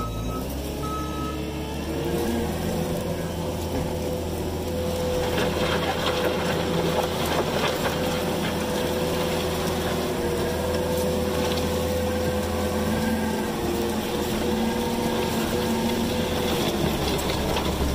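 New Holland skid steer's diesel engine running hard while working dirt: it revs up about two seconds in and holds at high revs with small rises and falls in pitch, easing slightly near the end.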